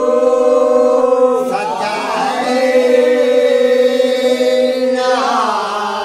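A group of men singing a Dogri bakh together without instruments, holding long drawn-out notes in chorus. The voices waver and shift about a second and a half in, then hold again, and slide down in pitch near the end.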